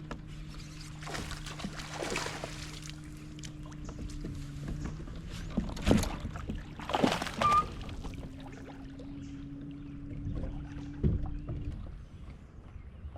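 Sounds aboard a fishing boat on a lake: a steady low motor hum that stops about five seconds in and comes back about three seconds later. In between come several sharp knocks and thumps against the boat.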